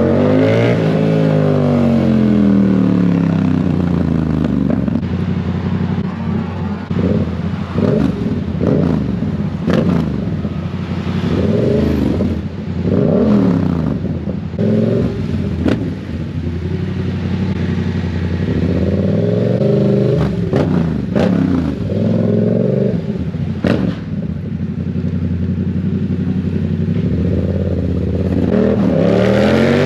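Sport motorcycle with a loud exhaust, heard from the rider's seat, revving repeatedly up and down through the gears. Sharp pops and crackles from the exhaust come between the revs.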